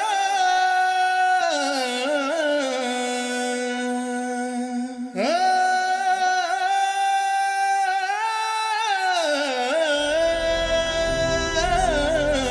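Background music with a slow sung melody that glides between long held notes. It drops out briefly about five seconds in, and a low bass comes in near ten seconds.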